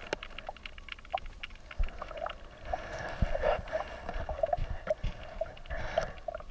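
Underwater river sound heard through a GoPro's waterproof housing: scattered small clicks and pops of moving water and bubbles, with a louder rush of noise about three seconds in.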